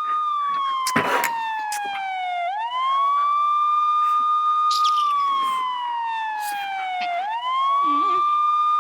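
Police siren wailing in slow cycles: the pitch rises quickly, holds high for about two seconds, then slides slowly down before climbing again, twice over. A sharp knock sounds about a second in.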